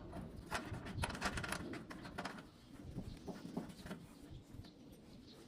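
Faint scattered clicks and small metallic taps as the thin refrigerant pipe's nut is fitted by hand onto the air-conditioner outdoor unit's valve. They are thickest in the first half and sparse toward the end.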